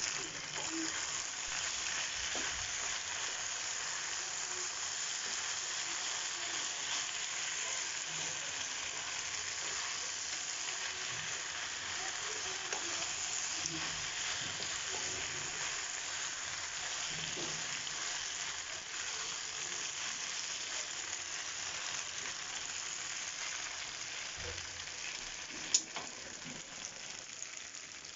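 Food frying in a pan: a steady sizzle throughout, with a single sharp click near the end.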